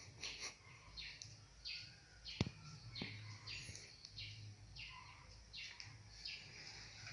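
Faint, regular chirping from a small animal, about two short calls a second, each falling in pitch. Two sharp clicks come a little over two seconds in, over a low steady hum.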